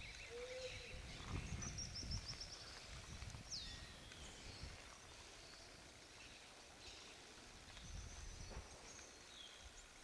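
Quiet outdoor ambience with scattered bird calls: a rapid high trill about a second and a half in, a quick falling whistle around three and a half seconds, and another short call near the end, over a low, uneven rumble.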